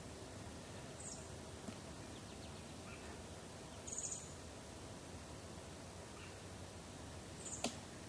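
Quiet woodland background with three short, very high chirps a few seconds apart, and one sharp tap near the end that fits a woodpecker pecking at wood while foraging for grubs.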